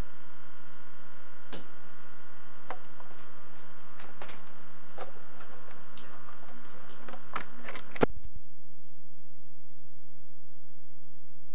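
Scattered clicks and knocks from handling a home video camera over a steady hum with several tones. About eight seconds in, a loud sharp click cuts the recording off, and only a faint steady tone is left.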